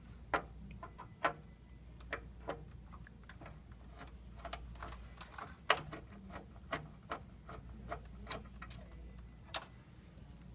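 Faint, irregular light clicks and taps of a screwdriver backing out the single screw that holds the hard drive's bracket.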